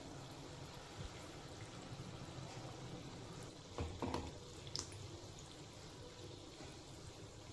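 Urad dal vadas deep-frying in oil over a low flame: a faint, steady sizzle and bubbling. About four seconds in, a metal slotted spoon knocks a few times against the kadhai as the vadas are turned.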